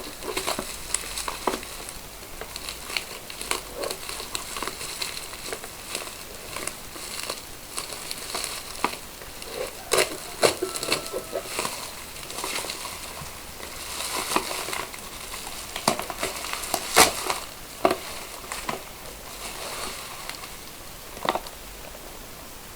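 Plastic and cardboard packaging being opened and handled: irregular crinkling and rustling with scattered sharp clicks and taps, the loudest about ten seconds in and again near seventeen seconds.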